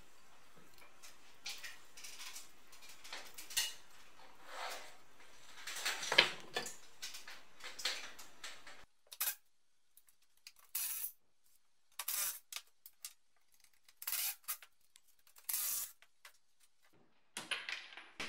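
Rusty steel brackets, nuts and bolts clinking and knocking as they are handled. After about nine seconds a cordless impact driver runs in about five short bursts against a badly rusted nut that will not come off.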